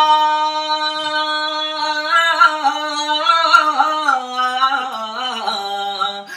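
A man's solo voice singing a naat unaccompanied. He holds a long steady note, then about two seconds in breaks it into a wavering, ornamented run that steps down to a lower held note near the end.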